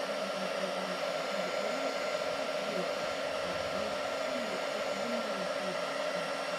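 Handheld electric heat gun running steadily, blowing hot air to shrink heat-shrink tubing over a soldered wire joint.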